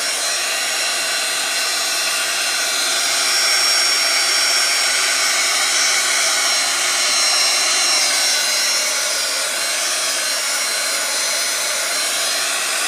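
Handheld hot-air blower running steadily with a faint high whine, blowing over wet alcohol inks to push them around and blend them.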